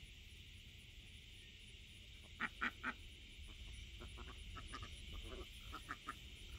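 Domestic ducks quacking: three loud quacks about two and a half seconds in, followed by a run of softer, quicker quacks.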